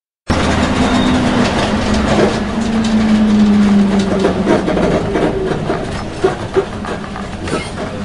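School bus running, starting abruptly about a quarter second in. There is a steady engine drone with a humming tone, over constant rattling and clatter.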